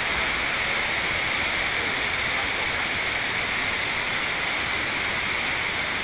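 Waterfall rushing steadily: an even hiss of falling water with no breaks.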